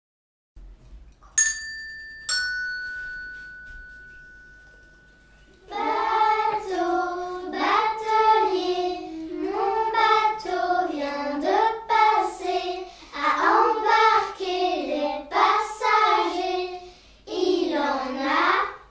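Two bright struck chime notes about a second apart, the second lower, each ringing out and fading. About six seconds in, a voice starts singing a French children's song.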